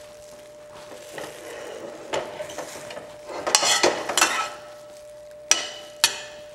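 Riced cauliflower being stirred in a hot pan with a utensil: scraping strokes over a light sizzle, loudest around the middle, then two sharp taps of the utensil on the pan near the end.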